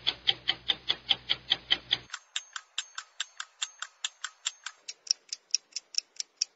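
Clock-like ticking, about five even ticks a second. A low background hum under it cuts out about two seconds in, leaving the ticks alone.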